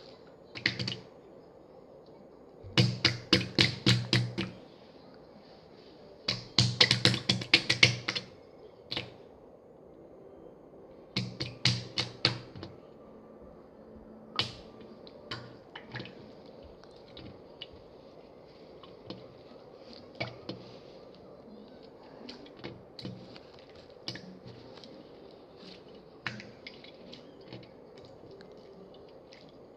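Slime being squeezed and pressed, popping trapped air in three runs of rapid clicks and pops, then scattered single pops.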